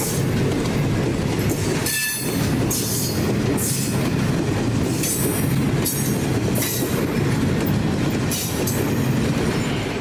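Loaded grain train rolling by: a steady low rumble of the hopper wagons, with repeated wheel clatter over the rail joints.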